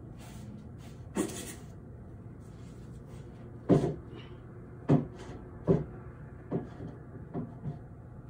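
A series of about seven sharp knocks or thumps at uneven intervals, the loudest in the middle, over a steady low hum.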